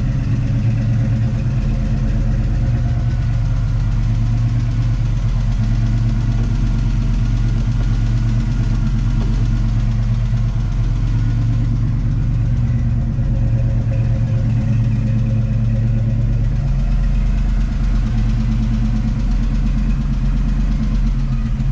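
1989 Ford Mustang's 5.0 L (302) small-block V8, with a Trick Flow Track Max cam, long-tube headers and true dual exhaust through Flowmaster mufflers, idling steadily.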